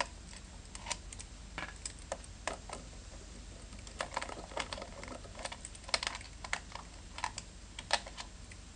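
Irregular small clicks and taps of hand work on a GY6 scooter's plastic cooling fan: an 8mm nut driver backs out the last fan bolts and the fan is handled and lifted off its flywheel, over a faint low hum.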